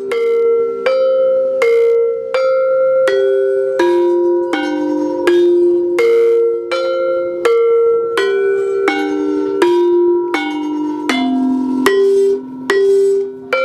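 Javanese gamelan saron, its bronze keys struck one at a time with a mallet, playing a slow melody. There is about one note every three-quarters of a second, and each ringing note overlaps the next.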